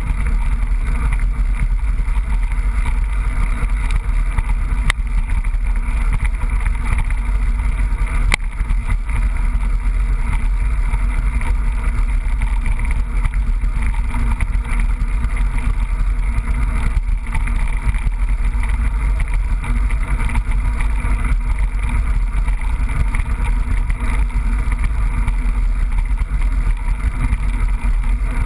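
Steady riding noise from a mountain bike on a trail, picked up by an action camera: low wind buffeting on the microphone with rattle from the bike. Two sharp knocks come about 5 and 8 seconds in.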